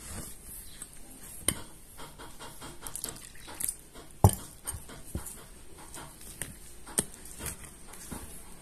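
Steel spoon stirring flour and water into a wet dough in a stainless steel bowl: soft scraping and squelching, with irregular sharp clinks of spoon against the metal, the loudest about four seconds in.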